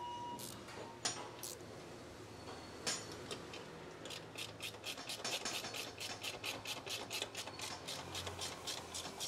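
Ratchet wrench clicking as the coilover's upper-mount nuts are run down: a few scattered clicks at first, then from about four seconds in a quick, even run of strokes, about five a second.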